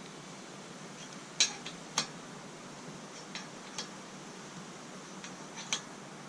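A handful of sharp, light metal clinks of an adjustable wrench on a thread tap and steel, while holes are hand-tapped, the loudest two about a second and a half in and a half second apart.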